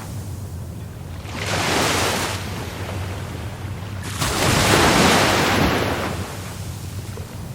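Rough Caribbean Sea surf, waves breaking and washing in. A smaller wave surges about one and a half seconds in, and a bigger, louder one about four seconds in, fading before the end.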